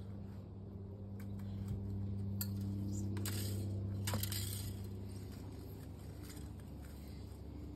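Ryobi P2900 cordless hedge trimmer running out of sight with a steady low hum that grows louder for a few seconds in the middle, with a few sharp clicks, the loudest about four seconds in.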